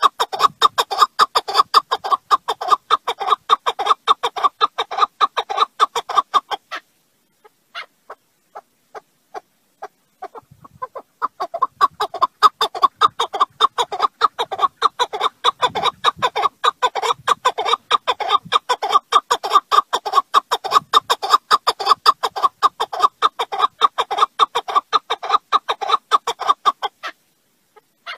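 Chukar partridge calling in a fast run of short notes, about four or five a second. The run thins to a few scattered notes after about seven seconds, picks up again a few seconds later, and stops shortly before the end.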